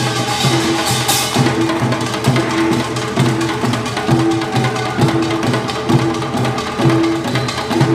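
Korean traditional drum ensemble of janggu hourglass drums and a buk barrel drum playing a fast, steady rhythm of dry, woody stick strikes, with a short low note recurring every half second or so.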